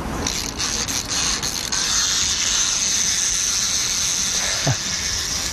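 Small tin wind-up toy robot: a few clicks as it is wound, then its clockwork mechanism running with a steady high whirr.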